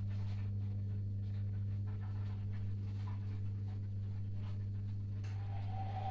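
Bosch Maxx 7 front-loading washing machine running through its short wash cycle: a steady low hum with faint swishing and ticking from the drum. About five seconds in, a higher whine sets in.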